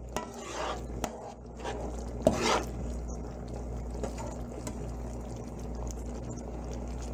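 A metal perforated skimmer stirring and scraping vegetables through sauce in a wok, with scattered clinks of metal on the pan, the loudest about two seconds in. A steady low hum runs underneath.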